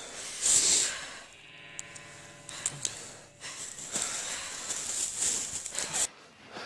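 A frightened young woman gasping and breathing hard, with a held, whimpering moan lasting about two seconds, followed by rough, hissing breaths.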